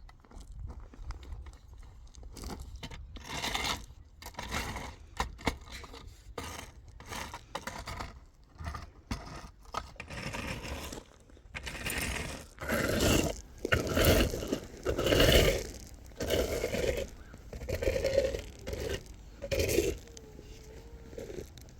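Irregular scraping strokes with some clinking, louder and more frequent in the second half.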